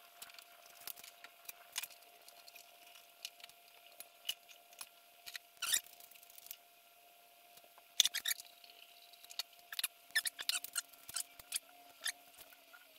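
Scattered sharp clicks and metallic clinks of hand tools and parts handled during engine-removal work on an air-cooled VW engine bay, coming in irregular clusters over a faint steady hum.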